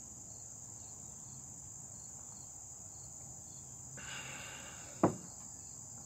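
Steady high-pitched chorus of insects outdoors, with a soft brief hiss about four seconds in and a single sharp knock about five seconds in.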